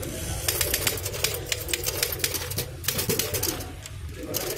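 Old manual typewriter being typed on fast: a quick run of sharp key strikes clacking against the platen, thinning out to a short break near the end.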